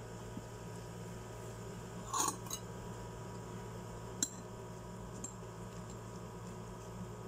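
Metal spoon clinking against a ceramic bowl: a brief clattering scrape about two seconds in and one sharp, ringing clink about four seconds in, over a steady low room hum.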